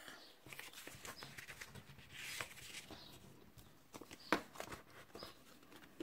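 Quiet rustling and sliding of paper cards being handled, with one sharp click about four seconds in.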